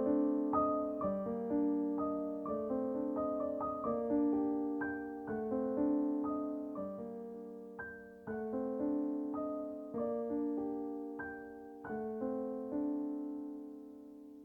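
Background music: a slow, gentle solo piano piece, fading out at the end.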